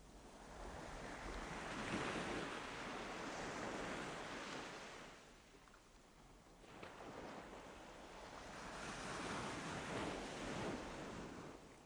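Ocean waves breaking on a shore: two swells of rushing surf, the first building over the first few seconds, then a lull around six seconds before the second wave washes in.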